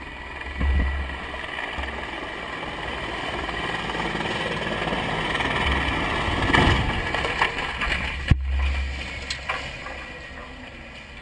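Steady wind and engine rumble on a vehicle-mounted camera, swelling into a louder rush of noise about six and a half seconds in, with a single sharp crack a couple of seconds later. The helicopter crash happens within these few seconds.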